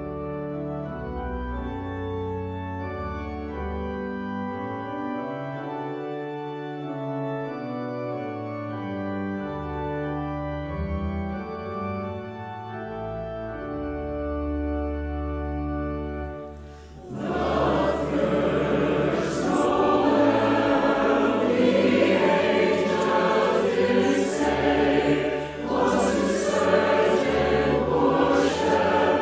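Pipe-style organ playing slow sustained chords; a little over halfway through, a choir comes in singing.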